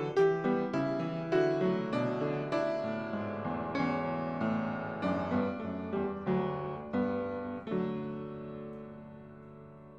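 Solo piano music: notes struck one after another, ending on a final chord about three-quarters of the way in that is held and slowly fades out.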